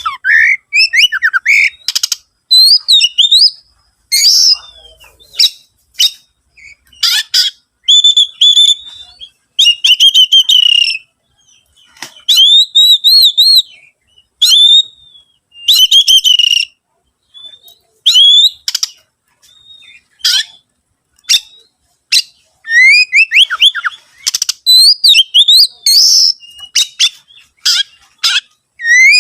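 Oriental magpie-robin (kacer) singing loudly: a fast, varied song of whistled phrases and sharp chips, in bursts of about a second with short pauses, with other birds' songs mimicked into it.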